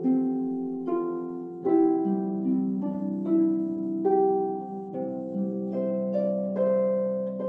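Large floor harp played slowly and gently: plucked single notes and broken chords that ring on over one another, with a new note or chord about every second. Heard through a Zoom call's audio.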